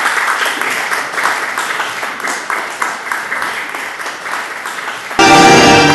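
An audience clapping and applauding steadily. About five seconds in, it cuts off abruptly and loud tango music starts with a sustained chord.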